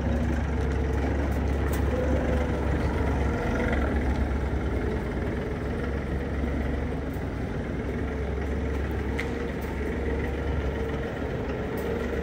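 A vehicle engine idling steadily, a constant low hum with a slightly wavering higher tone over it, and a few faint clicks.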